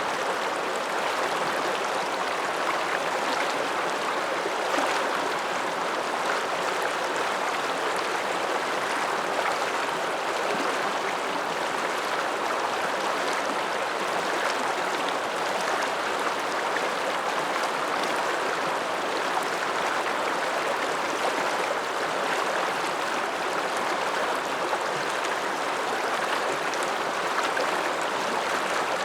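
The Ramsauer Ache, an Alpine mountain river, rushing with a steady, even sound of flowing water.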